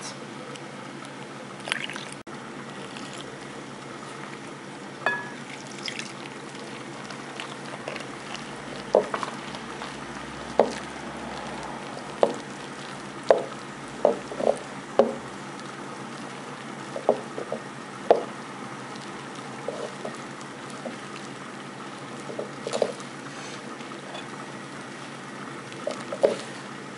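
A hand mixing flour and salted water into a sticky dough in a glass bowl: irregular short wet squishes, one at a time, over a steady faint hiss.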